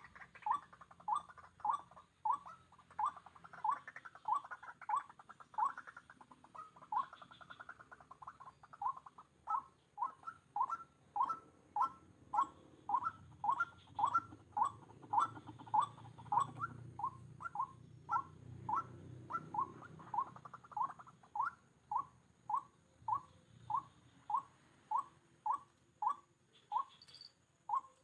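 White-breasted waterhen (dahuk) call: a monotonous series of short notes, about two a second, repeated without a break.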